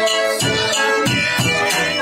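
Garmon (Russian button accordion) playing a lively folk tune in chords, with a steady drum beat of about three strikes a second.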